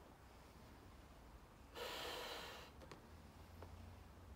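A person blowing up a 16-inch latex balloon by mouth: one sharp intake of breath about two seconds in, between long blows into the balloon.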